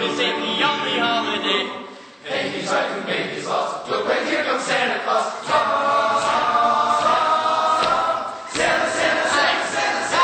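High school choir singing in harmony, voices only, with short breaks between phrases about two seconds in and again near the end.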